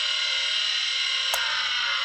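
Seagate ST-157A hard drive's spindle motor whining at full speed. A sharp click comes a little over a second in, and the whine starts to fall in pitch as the drive winds down. The drive is dead from a drop and never initialises.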